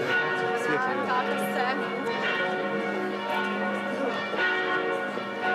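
Church bells ringing, several bells sounding together with overlapping strikes, over voices of people in the street.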